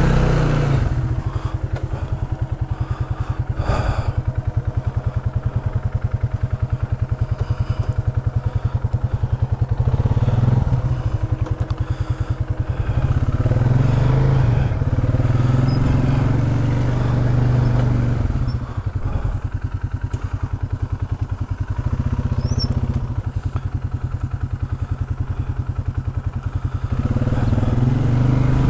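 Polaris Sportsman 570 ATV's single-cylinder engine running at low speed while the quad is turned around in a muddy creek bed, the throttle opened and eased off several times so the engine note swells and drops. A single knock sounds about four seconds in.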